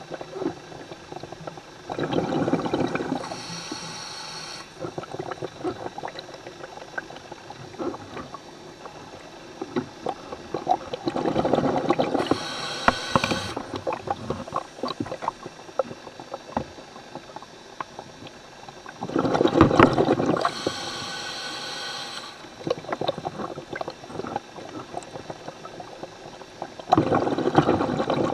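A scuba diver breathing through a regulator underwater: a burst of exhaled bubbles about every eight or nine seconds, four breaths in all, each with a high-pitched hiss from the regulator.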